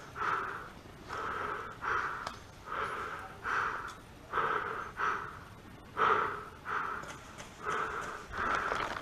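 Quick, heavy breathing close to the microphone, the camera wearer panting in even puffs of breath, about three every two seconds.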